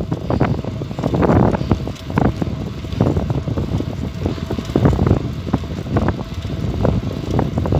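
Wind buffeting the microphone of a camera riding on a moving bicycle, in uneven gusts, over the bike's road noise.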